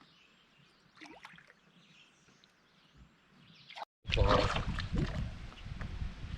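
Near quiet for about four seconds, then loud water splashing and a low rumble close to the microphone around the boat.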